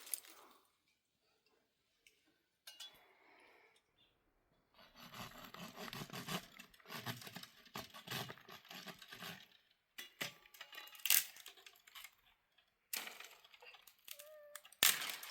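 Irregular clinking and rattling of small hard objects being handled, busiest in the middle, then a few single sharp clicks, with stretches of dead silence between.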